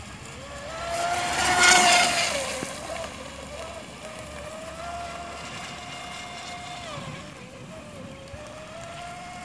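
Radio-controlled speedboat's motor whining at high revs, its pitch wavering up and down with the throttle. Around two seconds in it grows loud with a rushing hiss, then settles back to a steady whine.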